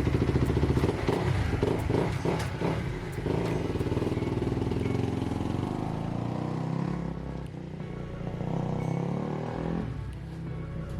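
Kawasaki KX250F dirt bike's 249cc single-cylinder four-stroke engine running, with several quick throttle blips in the first few seconds. It then settles to a steadier run whose pitch sinks and rises again.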